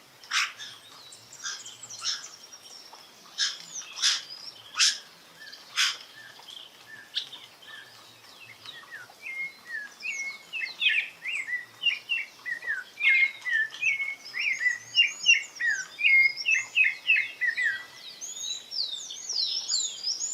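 Rufous-bellied thrush (sabiá-laranjeira) singing softly: a few sharp call notes over the first six seconds, then from about nine seconds in a run of quick, slurred warbling notes. Higher, thinner twittering notes overlap it near the end.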